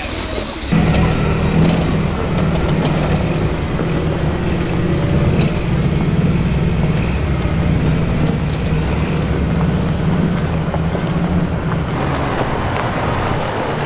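Lifted off-road truck's engine running at a steady speed, close by. It cuts in abruptly about a second in and holds an even note until the sound changes near the end.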